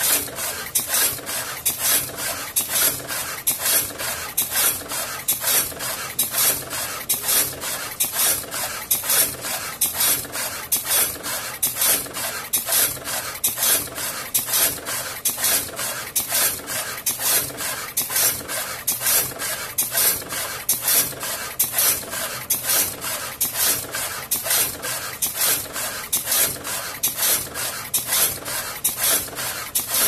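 Automatic reed switch insertion machine cycling, its head inserting reed switches into a through-hole PCB panel in a steady rhythm of short, scratchy strokes about two a second.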